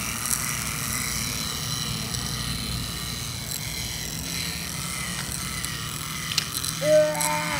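Small electric motor and gears of a battery-operated toy bus whirring steadily as it drives along wooden track, with a few faint clicks. A brief voice sound comes near the end.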